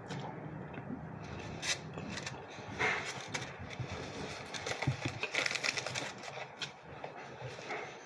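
A person chewing a mouthful of hot pastrami sandwich close to the microphone, with irregular wet smacks and clicks.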